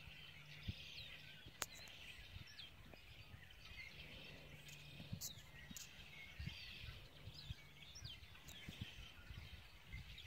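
Faint outdoor ambience: small birds chirping over and over with short, quick falling notes, over a low hum that comes and goes, and a couple of sharp ticks.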